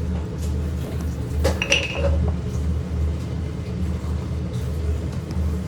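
A steady low rumble, with one metal clink about a second and a half in as a utensil knocks against the cooking pan.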